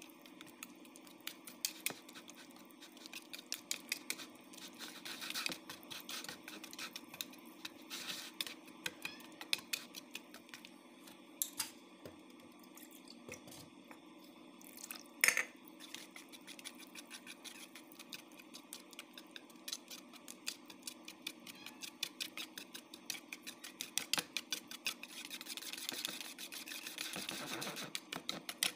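Stainless wire whisk beating pancake batter in a mixing bowl, its wires clicking rapidly against the sides of the bowl, with one louder knock about halfway through.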